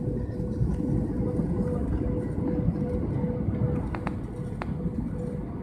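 Cabin noise inside an Airbus A320-family airliner on approach: a steady low rumble of the engines and airflow with a constant hum over it. A few faint clicks about four seconds in.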